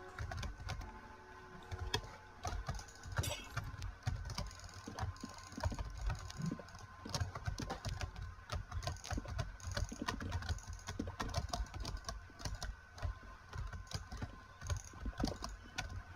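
Computer mouse buttons clicking rapidly and irregularly, many sharp little clicks in quick succession.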